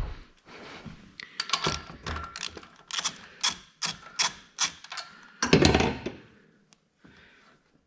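Socket ratchet clicking in quick, even strokes, two or three a second, as a spark plug is unscrewed from an ATV engine, followed by a louder clatter about five and a half seconds in.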